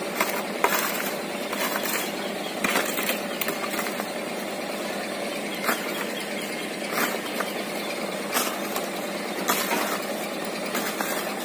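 A shovel blade scraping and crunching into sand and soil in short strokes every second or so, over the steady running of a dump truck's engine.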